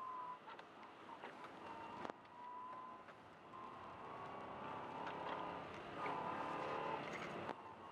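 Subaru Forester driving through deep snow, heard from inside the cabin: the engine runs under load with a tone that wavers up and down, growing a little louder in the second half. There are a few sharp knocks.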